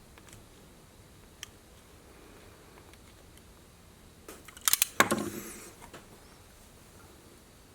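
A cutting tool working at the insulation of a spark plug wire. There is a faint click about a second and a half in, then a quick cluster of sharp snips and clicks about five seconds in, ending in a short scraping rustle.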